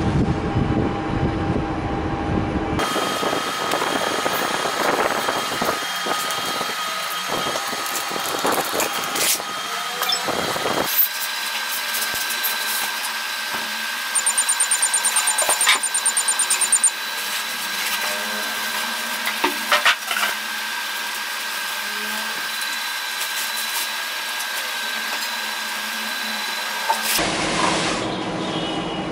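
Handling noise from unpacking loudspeakers: cardboard, foam and plastic wrapping scraping and rustling, with scattered knocks and a quick rattling run about halfway through.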